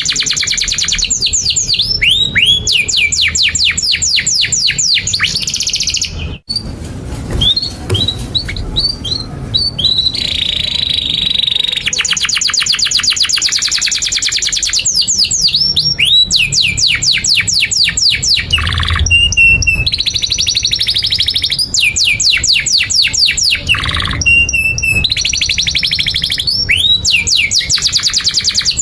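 Domestic canary singing a long, continuous song: fast rolling trills of rapidly repeated notes, alternating with sharp falling chirps. The song breaks off briefly about six seconds in.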